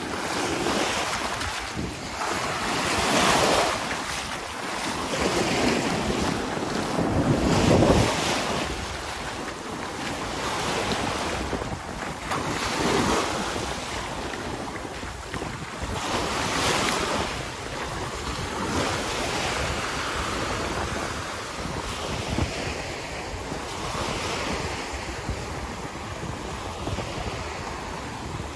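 Small sea waves breaking and washing up a sandy beach as foamy surf, the noise of the water swelling and easing every few seconds.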